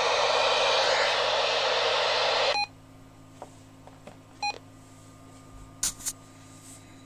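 UHF radio's receiver static hissing, cut off suddenly about two and a half seconds in with a short key beep as the channel is changed. A second key beep follows near the middle, then two soft clicks about six seconds in.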